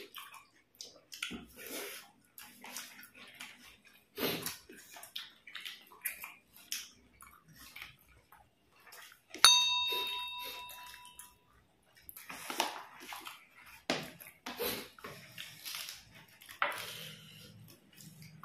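Wet, squishy sounds of hands mixing rice with chicken curry on plates, and mouth-eating noises, in short irregular bursts. About halfway through, one sharp bell-like chime rings out for a couple of seconds and fades, the loudest sound here.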